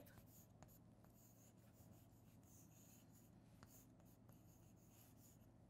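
Faint scratching and light tapping of chalk writing on a blackboard, over near silence with a steady low hum.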